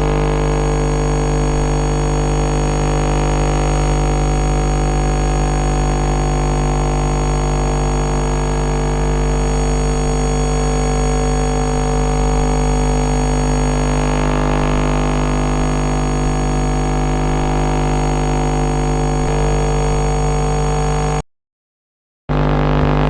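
Emergency alert system alarm: a loud, harsh, unchanging chord of many steady tones over a low drone. It cuts out completely for about a second near the end, then resumes.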